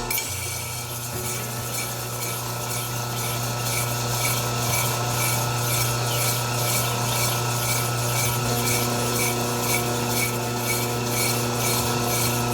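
Hair clipper blade being ground on a motor-driven sharpening wheel: a steady motor hum with a rhythmic scraping about twice a second as the blade is worked against the abrasive.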